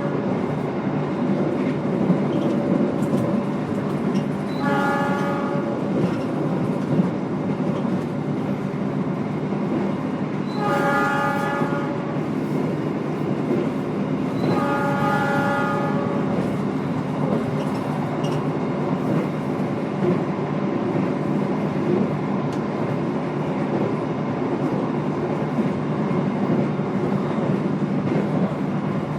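Steady running rumble of a passenger train heard from inside an executive-class carriage, with the locomotive's horn sounding three times, each for about a second and a half, around five, eleven and fifteen seconds in.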